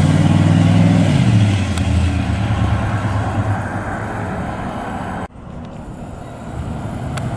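1963 Pontiac Catalina's 389 cubic-inch V8 running as the car pulls away, its exhaust note fading as it drives off. The sound drops off abruptly about five seconds in, and the engine continues more faintly after that.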